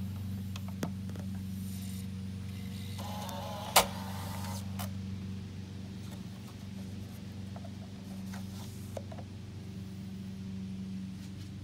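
Optimus CD-36 car CD player ejecting a disc: a button click, then the loading mechanism's motor whirs briefly with a sharp clack about four seconds in as the disc is pushed out. A few small clicks follow as the disc is slid from the slot, under a steady low electrical hum.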